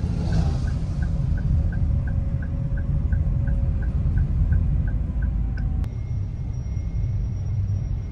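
Car cabin noise while driving: a steady low road and engine rumble. Over it comes a light ticking about three times a second for the first five seconds or so, ending in a single click.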